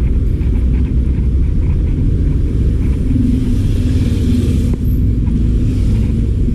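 Road traffic with a steady low noise, and a vehicle passing about three seconds in, its engine hum and tyre noise swelling and then fading.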